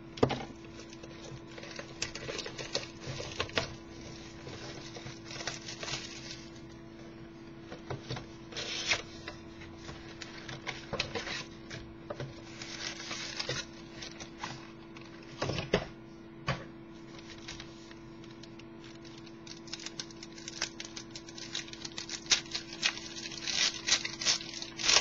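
A box of football trading cards and its card packs being opened and handled by hand: irregular rustling and crinkling of wrappers and cardboard with scattered clicks and taps, over a steady low hum.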